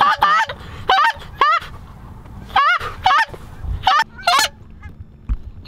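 A hunter's Canada goose call blown to work incoming geese: loud honks and clucks with a sharp break in pitch, a quick run at the start, then pairs of honks spaced about a second apart that stop about four and a half seconds in.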